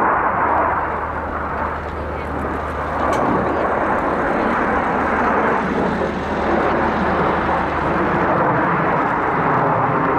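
KAI T-50B Golden Eagle jets with General Electric F404 turbofan engines, a steady, loud jet roar with a deep rumble underneath as they fly by in an aerobatic display.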